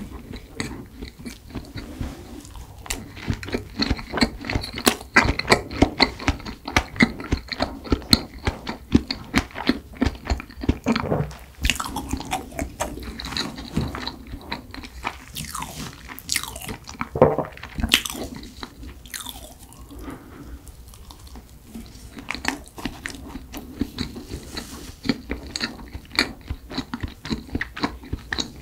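A person chewing food close to the microphone: a steady stream of small, sharp wet clicks and smacks from the mouth.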